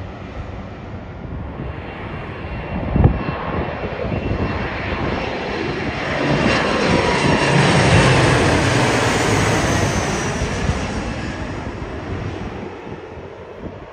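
Embraer E175 regional jet on final approach passing low overhead. Its two GE CF34-8E turbofans make a rushing noise with a steady whine, which builds to its loudest about eight seconds in and then fades away. A single sharp thump comes about three seconds in.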